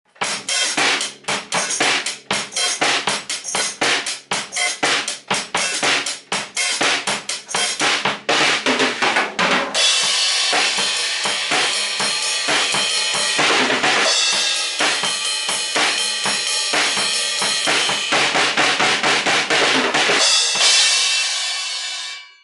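Acoustic drum kit played with sticks: a fast run of snare, kick and tom hits for about ten seconds, then a busier passage over washing crash cymbals. The cymbals ring on alone near the end until they are grabbed by hand and cut off.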